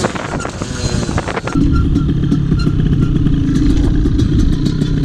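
Derbi Senda moped with a Stage6 77cc two-stroke kit running under riding load. About a second and a half in it settles into a louder, steady low drone that holds.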